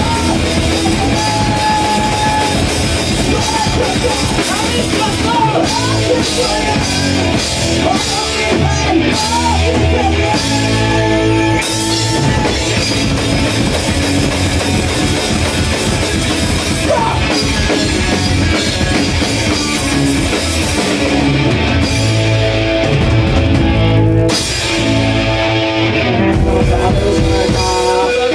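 Live rock band playing loudly: drum kit and guitar in a continuous song.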